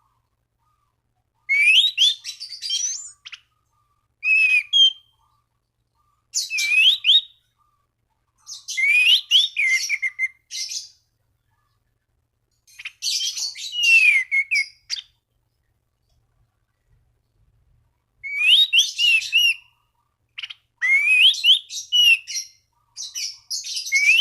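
Anis cendana thrush singing in full, repeated phrases of quick, varied whistled notes that sweep up and down, about eight phrases separated by short pauses. This is the loud, challenging song meant to call out a rival and set other thrushes singing.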